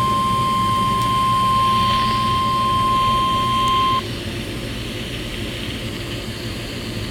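NOAA Weather Radio warning alarm, a single steady 1050 Hz tone, played through a radio's speaker. It cuts off suddenly about four seconds in, leaving the radio's steady hiss and hum, which announces an emergency alert for a National Weather Service high wind warning.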